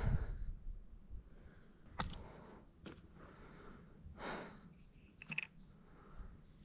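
Quiet outdoor background with two soft swells of noise about four seconds apart and a few sharp clicks in between.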